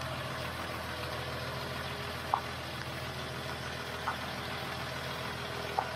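Large 4x4 camper truck's engine running steadily at low revs as the truck creeps forward, with three brief squeaks about two seconds apart.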